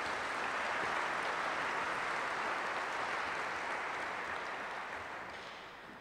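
Audience of seated guests applauding, a steady even clapping that dies away over the last two seconds.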